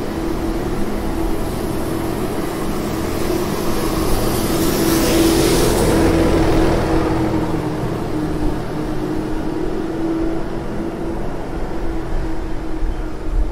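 City street ambience on a pedestrian shopping street: a steady mechanical hum runs throughout, and a rush of hiss swells up and fades away around the middle.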